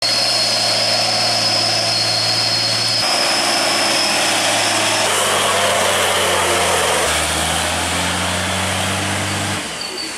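Heavy diesel truck engines labouring slowly up a steep hairpin climb, in a string of short clips: each holds a steady engine note, which changes abruptly about 3, 5 and 7 seconds in and drops away near the end. A steady high whine runs alongside for the first five seconds.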